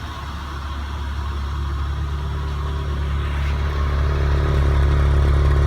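Renault Logan's 1.6-litre eight-valve engine running steadily as it warms up, its low hum growing gradually louder.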